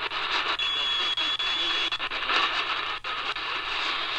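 Hiss and static from the QFX R-35's small speaker as it is tuned across the AM band between stations, with a weak station faintly under the noise. A thin steady whistle sounds for about a second and a half near the start, and there are a few sharp crackles, the loudest about three seconds in.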